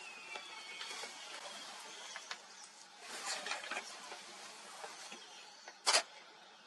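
Wild birds calling and chirping over an outdoor background hiss, with a busier patch of chirps about three seconds in and one short, loud, sharp note near the end.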